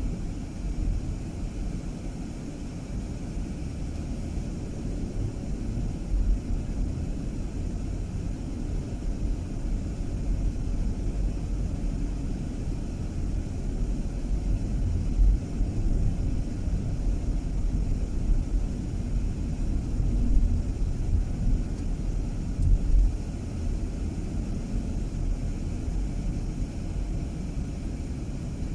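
A car being driven: a steady low rumble of engine and road noise, with a few brief louder bumps along the way.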